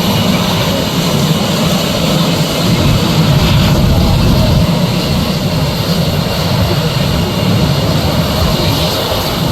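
Military display aircraft engines running with a loud, steady roar.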